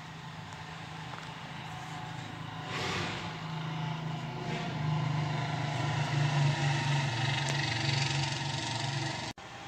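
A motor vehicle engine running steadily, growing louder midway, then cutting off suddenly near the end.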